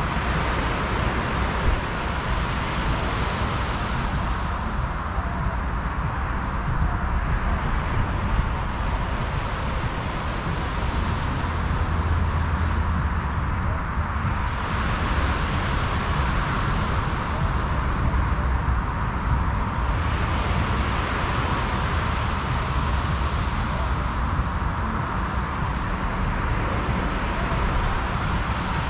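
Surf breaking and washing up the beach, a hiss that swells and fades every five or six seconds, over a steady low rumble of wind on the microphone.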